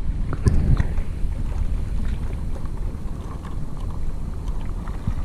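Wind rumbling on an action camera's microphone at sea, with scattered small water splashes and drips ticking through it.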